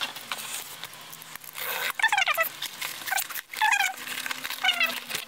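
Hands rummaging in a cardboard shipping box and its packing, rustling and scraping. Mixed in are several short high squeaks that fall in pitch, the first about two seconds in and more near the end.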